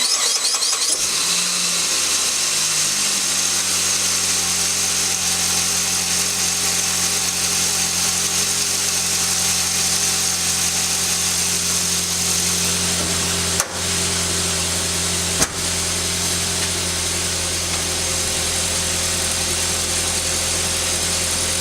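A Saab 9-5 Aero's turbocharged four-cylinder engine starts and idles steadily; its pitch shifts and settles in the first few seconds. Two brief clicks come a couple of seconds apart in the second half.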